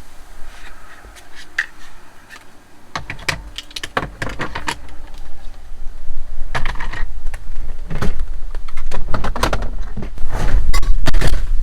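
A run of clicks, knocks and rattles, coming in quick clusters from a few seconds in, over a low rumble that grows louder in the second half.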